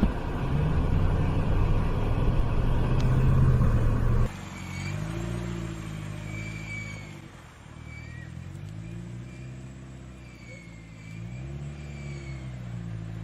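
Car engine running, then, after a sudden cut about four seconds in, an engine revving up and down several times.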